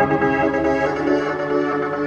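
Electronic music played from a vinyl record on a turntable: sustained organ-like synth chords held over a thin bass.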